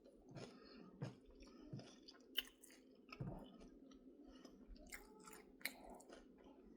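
Faint close-up chewing of kettle chips, with a scattered run of short, crisp crunches.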